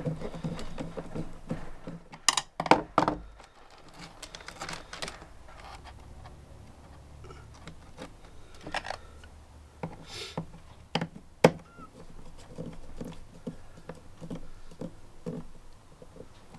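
Irregular small clicks, taps and scrapes of a screwdriver and electrical wires being handled at a plastic terminal connector strip, with a few sharper knocks.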